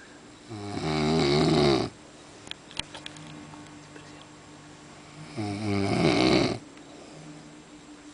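A man snoring in his sleep: two loud snores, each about a second and a half long and about five seconds apart, with softer breathing in between.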